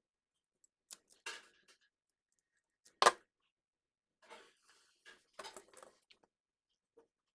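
Sharp clicks and snips of small hand tools and thin cable being handled, with one loud snap about three seconds in and a cluster of smaller clicks a couple of seconds later.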